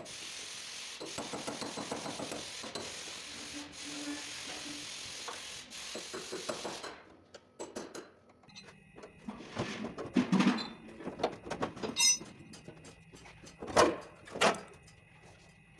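Hammer and chisel working the sheet steel of a Ford Taurus's rear fender and wheel apron. A steady hissing noise runs for about the first seven seconds, then come irregular sharp metal knocks, the loudest in the second half.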